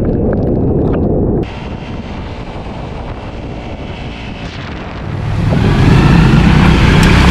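Honda dual-sport motorcycle being ridden, heard from the bike's own camera: the engine running under wind rushing over the microphone, in a few abrupt cuts between clips. From about five seconds in it grows louder, with the engine hum stronger and the rush of water as the bike splashes through a shallow creek crossing.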